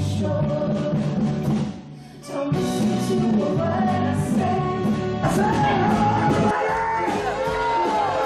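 A song with a singing voice over a band, rock in style, with a brief drop in level about two seconds in.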